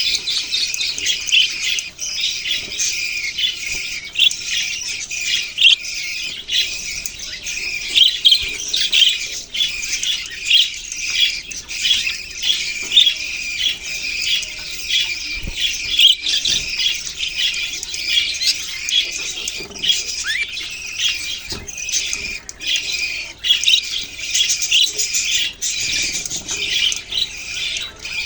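A flock of budgerigars chirping and chattering continuously, many overlapping calls, with a few low thumps here and there.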